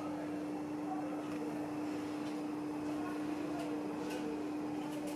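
A steady hum at one unchanging pitch over faint hiss, with a few soft ticks.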